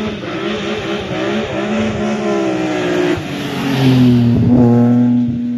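Rally car engine at high revs, with its note shifting in pitch as the car comes down the lane and passes close by. It is loudest as it goes past about four seconds in, then settles to a lower, steadier note.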